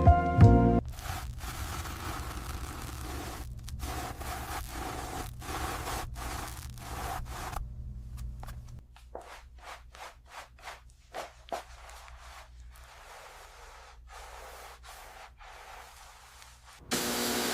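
Rubbing and scraping strokes on a surface, irregular and noisy, typical of hand cleaning or sanding work on car bodywork. After about nine seconds they turn lighter and shorter. Music cuts off within the first second, and a steady hiss starts near the end.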